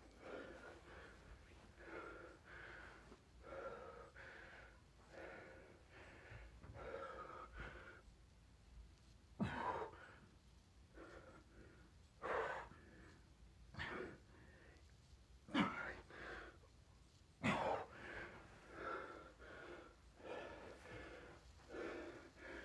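A man breathing hard while doing close-grip push-ups, a run of heavy breaths. In the second half, sharp forceful exhales come about every two seconds.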